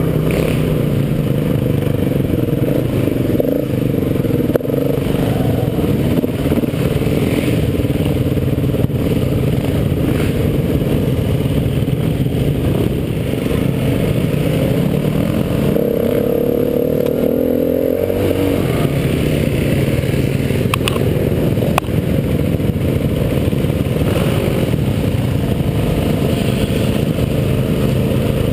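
KTM 350 EXC-F dirt bike's single-cylinder four-stroke engine under way on a trail ride, the revs rising and falling as the rider works the throttle. A few sharp clicks come about three-quarters of the way through.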